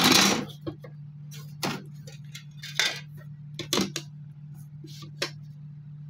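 A clear plastic ruler being handled on a drawing sheet: a short scraping rustle as it is placed, then scattered light clicks and taps as it is positioned and the pencil works along it. A steady low hum runs underneath.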